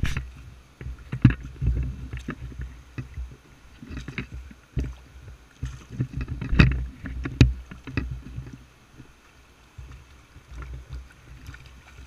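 A hooked trout splashing and thrashing at the water's surface while being played in on a fly rod: irregular splashes, the biggest about six and a half and seven and a half seconds in, over a low rumble.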